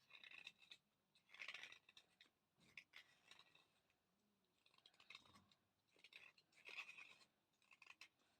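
A thick slate pencil being bitten and chewed dry, close to the microphone: about six short bursts of gritty crunching with brief pauses between them.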